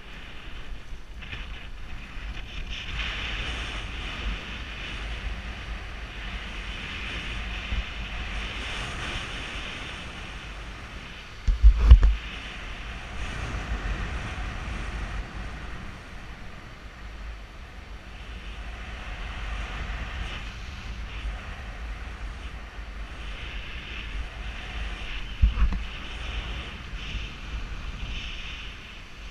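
Wind buffeting a GoPro Hero3 camera's microphone: a steady rumble and hiss that swells and fades with the gusts, with two sharp buffets, about twelve seconds in and again near the end.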